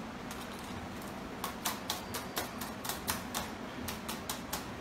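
A quick, uneven run of sharp, light clicks or taps, about five a second, starting about a second and a half in.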